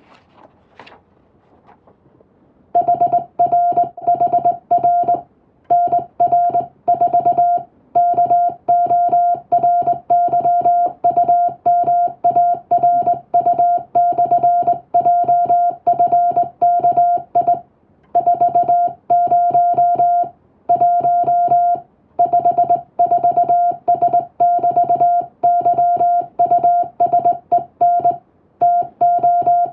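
Morse code sent with a telegraph key: a single steady beep switched on and off in quick dots and dashes. It starts about three seconds in and runs in groups of letters, each group broken off by a short pause.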